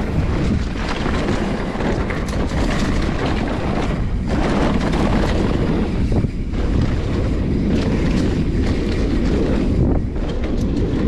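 Wind buffeting the microphone of a camera on a mountain bike riding fast down a dirt trail, with the tyres rolling over dirt and frequent knocks and rattles from the bike over bumps.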